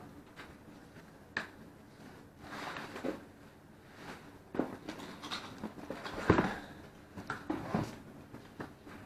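Handling noises from a rifle scope being unpacked: scattered clicks and knocks with brief rustles, the loudest knock about six seconds in.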